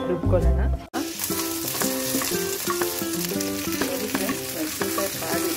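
Whole green chillies frying in a little oil in a non-stick pan, sizzling steadily while a wooden spatula stirs them. The sizzle starts suddenly about a second in.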